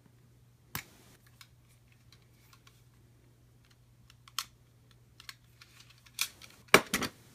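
Scattered clicks and taps of cardboard game components being handled on a table, with a louder cluster of knocks near the end.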